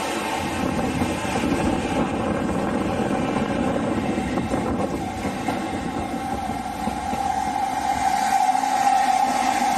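Electric commuter train running along the tracks: a continuous rumble with a steady tone that grows louder near the end.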